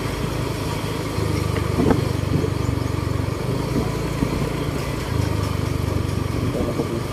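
Motorcycle engine running steadily at low road speed as it is ridden; the engine note gets a little louder about a second in.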